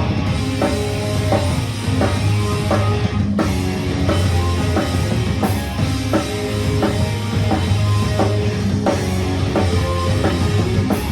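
Live rock band playing an instrumental passage: a drum kit keeping a steady beat under loud guitars, with no singing.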